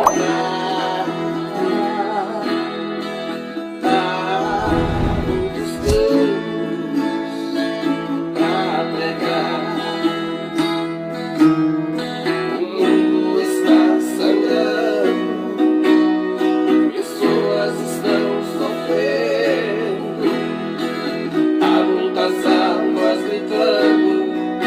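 Viola caipira strummed and picked as accompaniment to a gospel song, with singing voices over it. A brief low rumble sounds about five seconds in.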